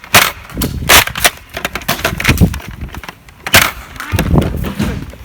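Toy foam-dart blasters firing: several sharp cracks and clacks at irregular intervals, with lighter knocks of handling and movement between them.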